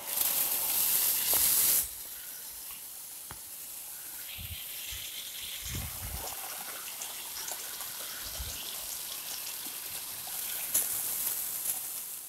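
Water gushing from the outlet of a 1.5 hp Texmo electric water pump, a steady rushing hiss, louder for the first two seconds.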